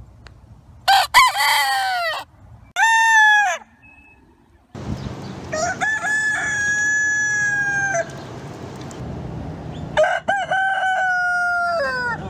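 Rooster crowing four times in succession, the first two short and the last two long and held, with a steady background hiss under the later crows.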